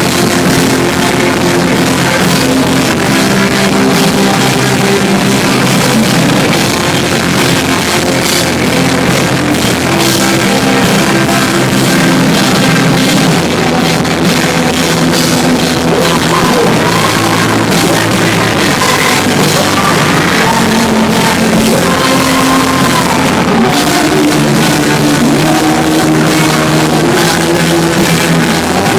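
Live rock band playing: drum kit and electric guitars with a sung melody, loud and continuous.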